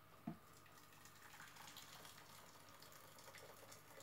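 Faint trickle of water being poured from an electric kettle into a pan of potatoes on the hob, with one short knock just after the start.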